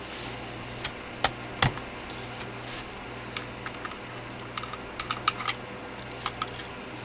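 Sharp plastic clicks and small taps from a Clarity E814CC cordless phone handset being handled as it is taken apart: three distinct clicks in the first two seconds, then clusters of light ticks. A steady low hum runs underneath.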